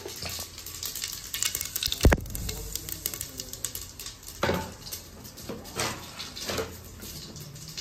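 Cumin seeds sizzling in hot refined oil in an aluminium pressure cooker, with many small pops. A loud metal clank about two seconds in, then lighter knocks of pots and utensils.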